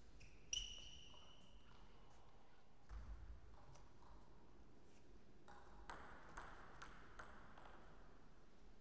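Table tennis ball bouncing: one sharp ping with a brief high ring about half a second in, then a run of about five light bounces roughly half a second apart a few seconds later, the server bouncing the ball before serving.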